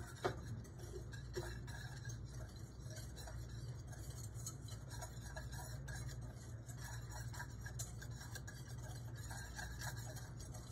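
A whisk ticking and scraping against the inside of a metal saucepan as dry ingredients are whisked together. It makes a busy run of light, irregular clicks, with one sharper knock just after the start.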